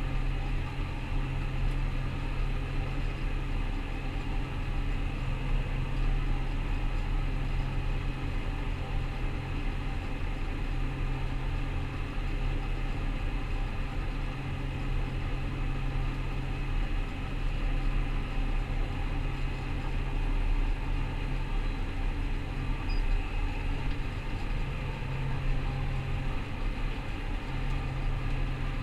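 Rostselmash Vector 425 combine harvester running steadily: a constant low engine drone with machinery noise above it.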